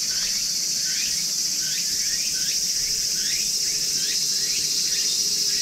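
Steady high-pitched chorus of summer insects, with a short falling chirp repeated about twice a second over it.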